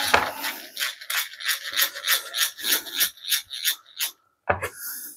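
Hand-cranked eggbeater drill boring a nail pilot hole into a thin wooden board. The bit and gears rasp in an even rhythm of about three strokes a second, which stops about four seconds in, followed by one short burst near the end.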